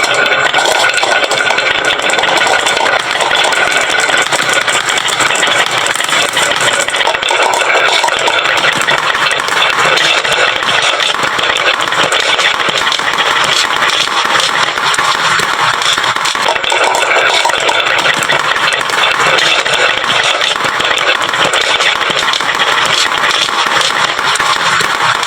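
Dense, continuous clatter of many marbles rolling and knocking down a wooden marble run slope.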